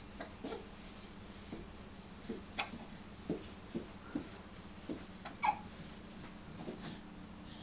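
A baby hiccuping: a run of short, sharp hics coming every half second to second, the loudest about two and a half and five and a half seconds in.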